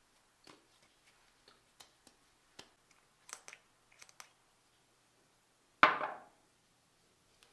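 Small clicks and taps of a plastic pump bottle being handled and its pump pressed, dispensing into a palm. Near the end, the bottle is set down on the sink counter with one sharp knock that rings briefly, the loudest sound.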